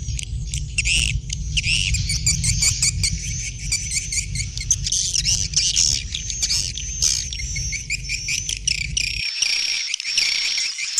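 Many small birds chirping and twittering rapidly and continuously. A low steady hum runs underneath and cuts off suddenly about nine seconds in.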